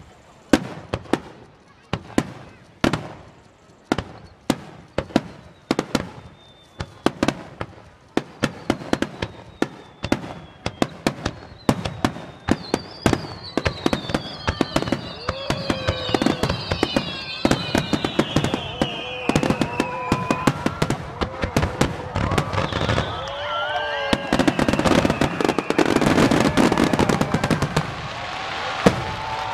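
Fireworks shells bursting in a quickening barrage: single bangs about a second apart at first, growing into a dense rapid-fire crackle. Several whistling shells sound together, falling in pitch from about 13 to 20 seconds in. Crowd voices rise near the end.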